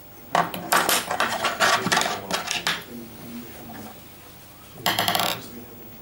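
Metal fly-tying tools, hackle pliers and a bobbin holder, clinking and clattering for a couple of seconds as they are handled, then a short burst of noise about five seconds in.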